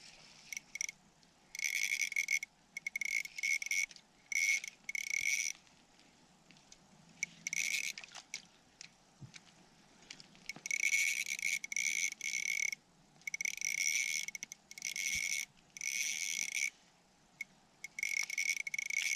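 Spinning reel's drag buzzing in about eight bursts of half a second to two seconds: a hooked splake taking line in runs during the fight.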